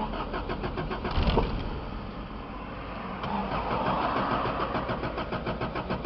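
1991 Toyota Cressida's starter cranking the engine in an even, rhythmic churn without it catching: a crank-no-start, where spark is present but fuel is not reaching the carburetor.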